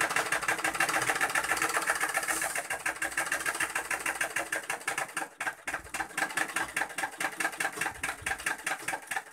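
Treadle sewing machine running at speed: a rapid, even clatter of its needle and shuttle mechanism, easing for a moment about five seconds in and then picking up again. It is the loud running noise that, the tailor says, dust, stray thread or rust in the shuttle and bobbin area brings on.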